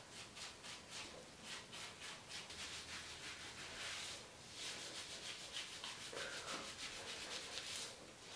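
Gloved hands massaging dye-soaked hair against the scalp: faint, quick rubbing strokes, several a second.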